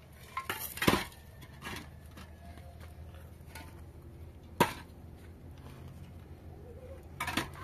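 Hollow concrete blocks knocking against each other and onto the ground as they are lifted off a stack and set down: a cluster of hard knocks about a second in, a single sharp knock a little past the middle, and another short cluster near the end.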